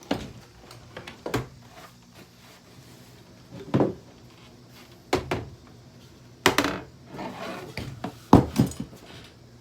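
Hard knocks and clanks of a Hoover vacuum cleaner's housing being struck and broken apart, about six separate blows at irregular intervals of one to two and a half seconds.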